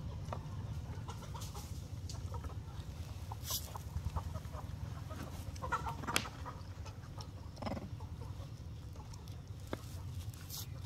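A few short animal calls, around six seconds in and again shortly before eight seconds, over a low steady rumble, with scattered light clicks.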